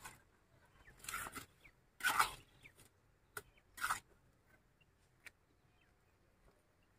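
Mason's trowel scraping wet mortar from a metal pan: three short scrapes in the first four seconds, with a couple of sharp ticks.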